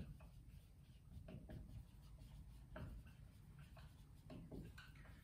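Marker pen writing on a whiteboard: a series of short, faint, irregular strokes as words are written out.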